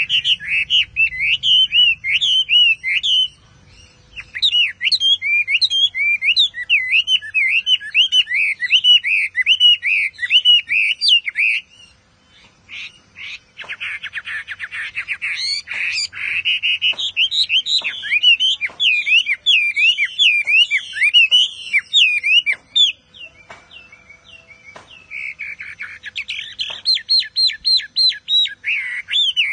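Chinese hwamei (Garrulax canorus) singing a long, fast run of varied sliding whistled notes, with short breaks about three seconds in and near the middle. Scattered sharp clicks come in through the middle part.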